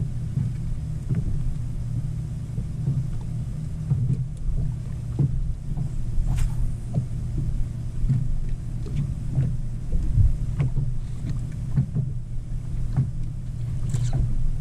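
Small waves slapping irregularly against a bass boat's hull over a steady low hum. There is a sharp click about six seconds in and another near the end.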